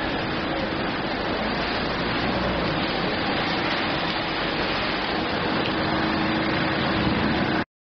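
Steady rain pouring onto a puddle on pavement, an even hiss of drops that stops abruptly just before the end.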